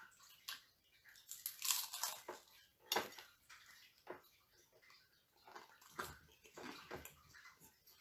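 Crunching and chewing on an egg roll: crackly bites, loudest about two and three seconds in and again around six to seven seconds.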